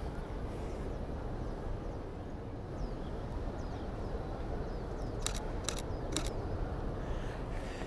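Canon R8 mirrorless camera's shutter firing three times in quick succession, about half a second apart, a little over five seconds in, over a steady low rumble.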